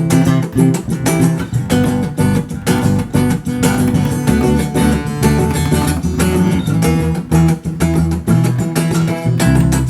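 Background music: a strummed acoustic guitar with bass and a steady beat.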